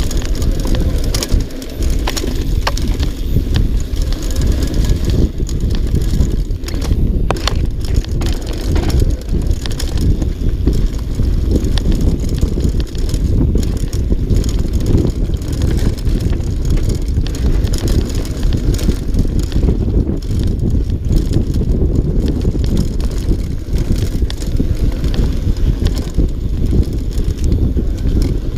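Mountain bike riding fast down a dirt trail, heard from a camera on the rider: a steady low rumble of wind on the microphone and knobby tyres on dirt, with scattered clicks and rattles from the bike over rough ground.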